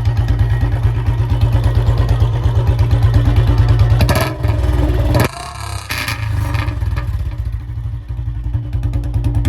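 Royal Enfield Bullet Classic 350's single-cylinder engine running very loud through an aftermarket narrow-mouthed Long Punjab silencer, revved with its firing pulses building for about four seconds. Just after five seconds the throttle is shut and the sound drops off sharply, then settles back into steady idle pulses near the end.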